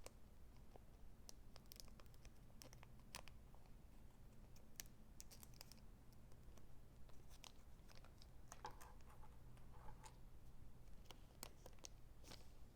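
Near silence with faint, scattered clicks and light rustles of trading cards and card packaging being handled, over a low room hum.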